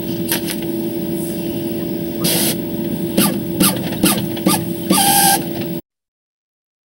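Epson ColorWorks CW-C6000-series inkjet label printer running: a steady mechanical hum with many quick clicks and two brief louder rushes of noise. It cuts off abruptly near the end.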